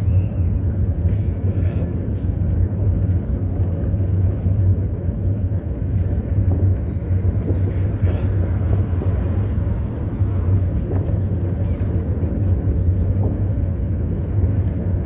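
Steady low wind rumble and road noise on the camera's microphone while riding a bicycle.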